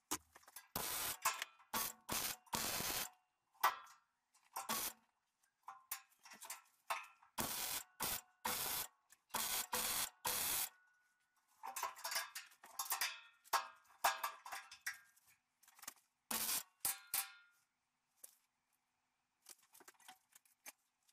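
MIG welder laying short runs on steel sheet: a crackling hiss in bursts of under a second to about a second and a half, stopping and starting, with a gap of a couple of seconds near the end.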